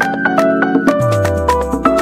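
Background music: held melodic notes over a quick, regular percussive beat, with a deep tone sliding down in pitch about halfway through.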